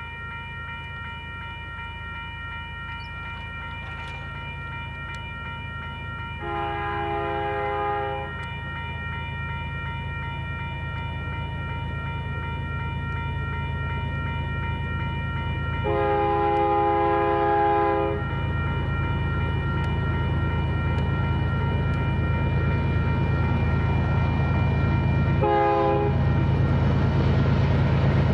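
Union Pacific diesel locomotive approaching on a freight train, its engine rumble growing steadily louder, sounding its multi-chime air horn in two long blasts and a short one near the end: the grade-crossing warning.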